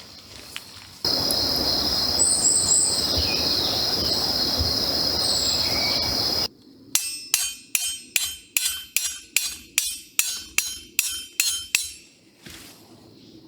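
A steady high insect drone with a few bird chirps, starting and stopping abruptly, then about a dozen even metallic hammer strikes, two or three a second, each ringing briefly, as when a metal tent stake is driven into the ground.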